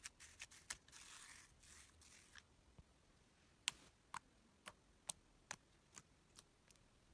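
Slime being handled, making faint sharp clicks and pops: a quick run of them in the first couple of seconds, then single pops about every half second.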